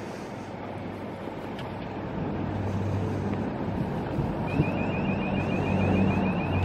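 Hydraulic mast pump of a solar mobile lighting tower running as the telescopic mast is raised: a low hum that starts about two seconds in and grows louder. Past the middle a fast high-pitched chirp joins it, repeating several times a second. Wind noise on the microphone throughout.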